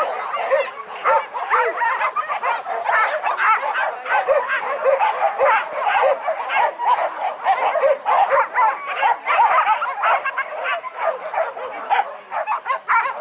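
A pack of hunting dogs yelping and baying without a break, many high yips overlapping at once, as the dogs give chase.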